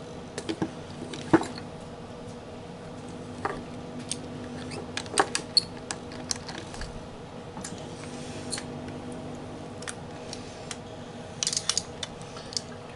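Scattered metal clicks and clinks of a socket and pliers working a small bolt on the magnet end of a throttle body's electric motor, with a cluster of quick clicks near the end.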